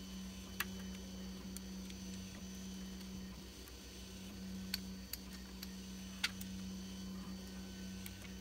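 About four sharp clicks of a plastic printed part knocking against the Prusa Mini's steel Z-axis rods as it is worked off by hand, over a steady low hum.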